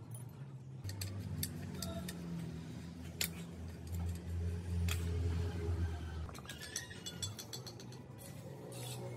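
Rusty motorcycle wheel parts being handled: sharp metallic clicks and clinks of loose steel spokes, the hub on its stand and the bare steel rim. Soft background music with a low bass line runs underneath, loudest around the middle.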